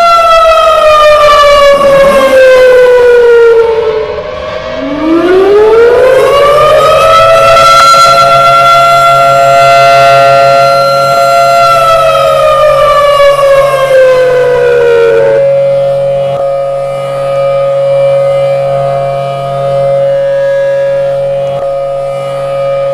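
Federal Signal Thunderbolt civil defense siren wailing. Its tone falls as it winds down, rises again about five seconds in, holds steady for about four seconds, then falls again. A second steady siren tone then holds through the rest, over a low steady hum.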